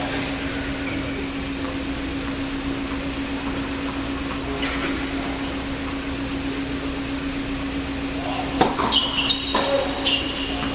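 Steady hum from an indoor tennis hall's ventilation. About eight and a half seconds in comes a quick series of sharp tennis ball hits and bounces, with high squeaks from players' shoes on the hard court as a point begins.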